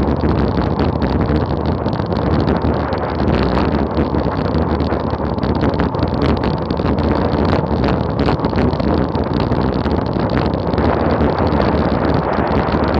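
Heavy, steady wind noise buffeting the action camera's microphone on a road bike descending at about 40 mph.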